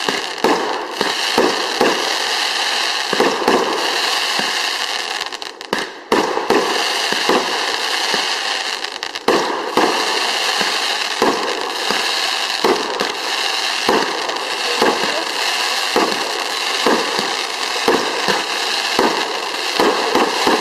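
Fireworks going off in quick, irregular succession: many sharp bangs and crackles over a steady hiss, with brief lulls about five seconds in and again about nine seconds in.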